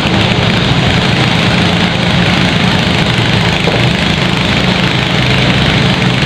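An engine idling steadily close by, a constant low hum with a dense rattling noise over it.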